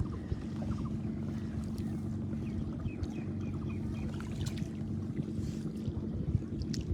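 A small engine running steadily with a low drone, with a row of faint, short high chirps about three seconds in.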